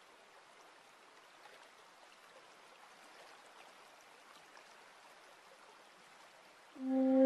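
Faint, even trickling of a small garden stream running over rocks. Near the end a loud flute note comes in and is held steady.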